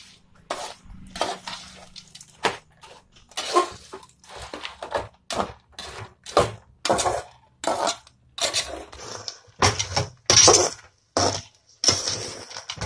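Metal ladle stirring and scraping fried tapioca pieces coated in thick jaggery syrup around a metal pot: a string of irregular scrapes and clinks against the pot's side, some ringing briefly near the end.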